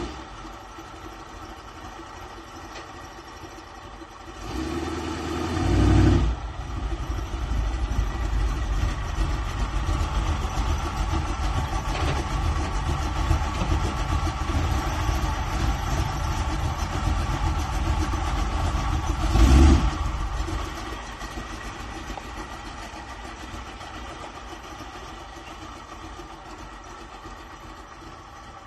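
Van engine cranked and starting about five seconds in, then running with a steady low rumble. A brief rev comes around twenty seconds in, after which it settles to a quieter idle.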